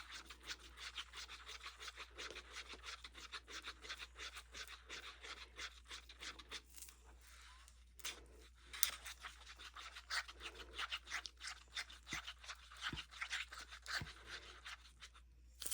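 Stirring stick scraping quickly and repeatedly around the inside of a plastic cup as pigmented epoxy resin is hand-stirred, with a brief let-up a little after halfway.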